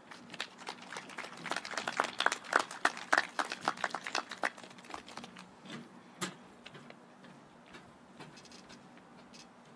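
Light applause from a few people clapping, dense for the first four or five seconds, then thinning to scattered claps.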